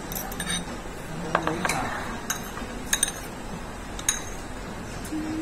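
Chopsticks and a fork clinking lightly against ceramic bowls while noodles are eaten: several short, scattered clinks.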